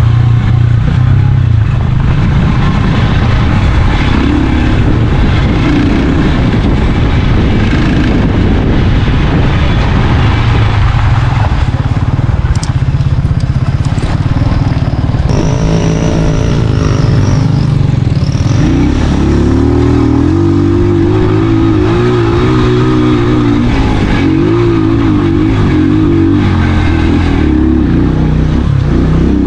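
Motorcycle engine running loud and continuously over a rough dirt trail, its pitch rising and falling with the throttle, wavering strongly during the second half.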